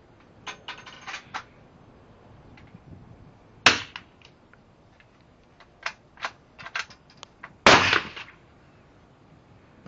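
Two rifle shots from a .357 Magnum lever-action rifle, about four seconds apart, each with a short ringing echo. Metallic clicks from the action being cycled come before the first shot and between the two.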